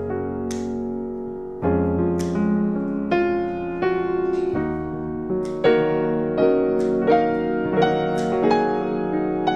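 Background music: a calm piano piece with sustained chords and a soft melody.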